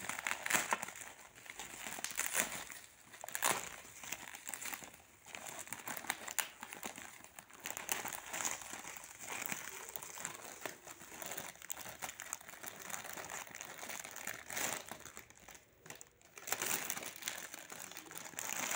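Bubble wrap and a clear plastic bag crinkling and rustling as hands unwrap a parcel, irregular and uneven, with a brief lull near the end.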